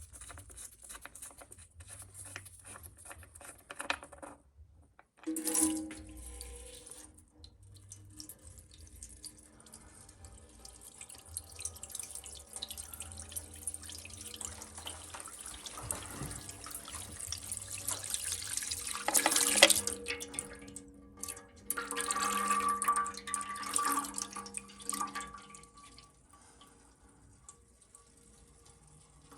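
Engine oil draining from a BMW N63 V8's sump into a drain pan: a stream of liquid pouring and splashing, louder twice in the second half.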